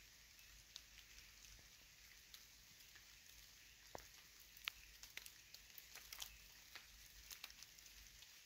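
Near silence: a faint high hiss with scattered faint ticks and crackles, more of them in the second half of the clip.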